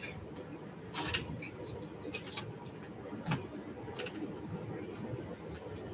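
Faint, scattered clicks and taps of window pieces being cut out of card and transparent glazing on a cutting mat, the sharpest about a second in.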